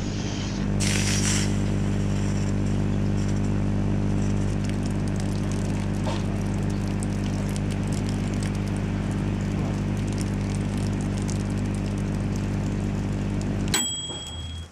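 Microwave oven's high-voltage transformer and bare magnetron running: a loud, steady mains hum with many overtones and faint crackling over it. The hum cuts off suddenly near the end when the power is switched off.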